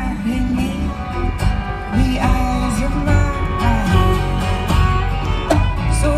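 Live acoustic folk band playing: acoustic guitar and upright bass under a sliding melody line.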